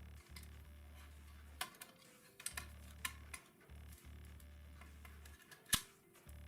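Small clicks and taps of the plastic housing of a toy sword as its cover is closed and fitted by hand, with one sharp click near the end. A faint low hum starts and stops underneath.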